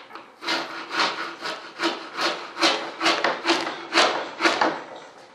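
Hand scraper scraping in short, repeated strokes, about two to three a second, across a glued-down surface on a wooden model aircraft wing, stubborn because the bond is tough. The strokes fade toward the end.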